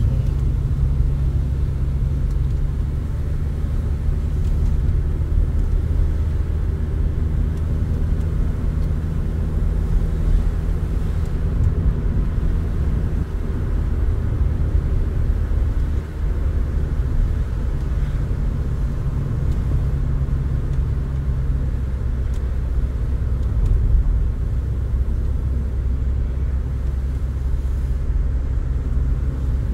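Car driving at a steady pace, heard from inside the cabin: a continuous low rumble of engine and road noise.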